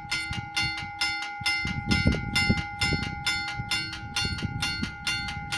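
Italian level crossing's electric warning bell ringing continuously in rapid, even strokes, about four to five a second, signalling that the barriers are down and a train is approaching.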